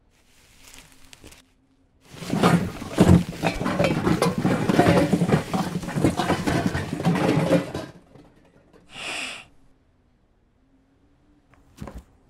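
A zipper being drawn open, a long rasp of fast clicking teeth lasting about six seconds. A short high-pitched sound follows, then a few light knocks near the end.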